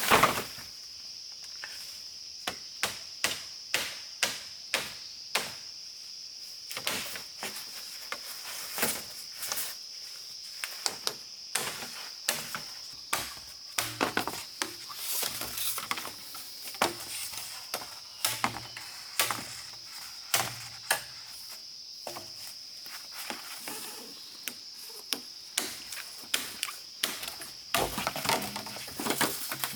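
Repeated sharp chopping strokes, roughly one or two a second with a few short pauses, over a steady high-pitched insect drone.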